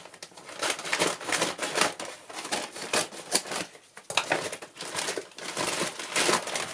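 Plastic cat litter bag crinkling as it is handled and opened, in a dense run of rustles with a short pause about four seconds in.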